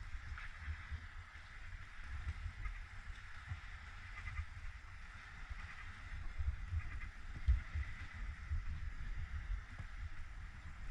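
Wind buffeting the microphone in uneven low gusts, over a faint steady high chirping in the background.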